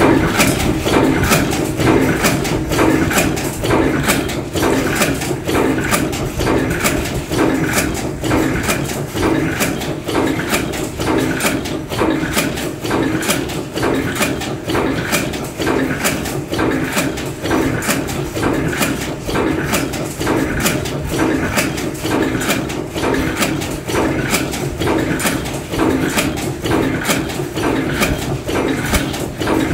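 Bolt former cold-forging machine running, its strokes coming in a steady, rapid rhythm.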